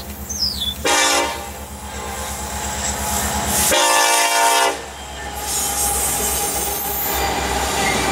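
Norfolk Southern EMD SD70ACe diesel locomotive sounding its air horn: a short blast about a second in, then a longer one near four seconds. Then the locomotive's engine and the freight cars' wheels rumble past on the rails.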